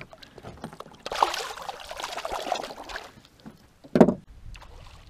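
Water splashing for about two seconds as a released northern pike is let go beside a boat and kicks away at the surface. About four seconds in comes a single sharp thump, the loudest sound.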